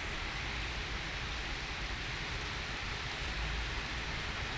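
Steady rain falling over rooftops and streets, an even hiss with a low rumble underneath.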